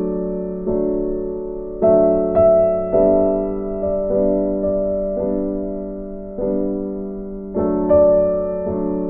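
Slow, gentle piano or electric-piano background music, notes and chords struck about once a second and left to ring and fade.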